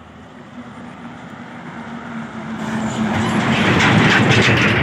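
A motor vehicle passing close by on the road, its engine and tyre noise growing louder and peaking about four seconds in before starting to fade.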